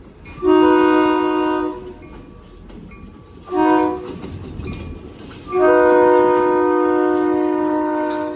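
Union Pacific freight locomotive's air horn sounding a salute: a long blast, a short one, then another long blast that runs on to the end. Each blast is a loud multi-note chord, over the low rumble of the passing train.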